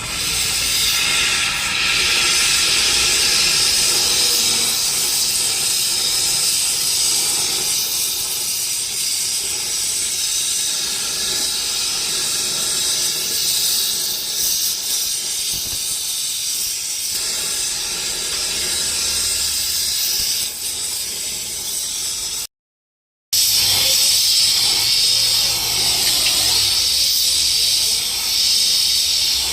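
A steady, loud hiss from an air tool at work in wheel repair, broken by a short gap of silence about three-quarters of the way through.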